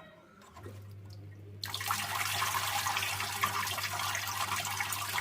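A small tabletop fountain's pump starts with a steady low hum. About a second later water begins splashing and trickling steadily as it pours down the fountain.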